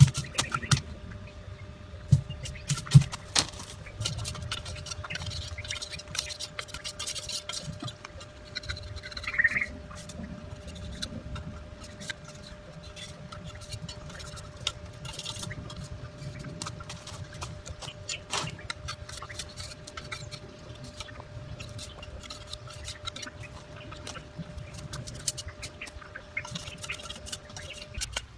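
Bamboo being split and shaved with a knife: a few sharp cracks and knocks in the first few seconds, then steady small cracking, scraping and rustling of thin bamboo strips.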